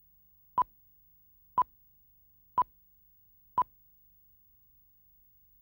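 Film countdown leader beeping: four short, identical beeps, one each second, which stop a little over three and a half seconds in.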